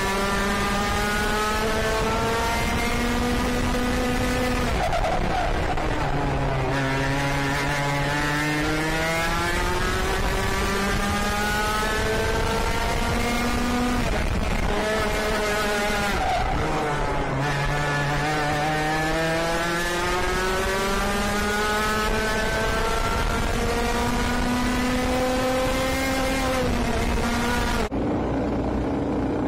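IAME KA100 100cc two-stroke kart engine at racing speed, its pitch climbing steadily under full throttle and dropping sharply off the throttle, three times over. Near the end the sound changes abruptly to a lower, duller note.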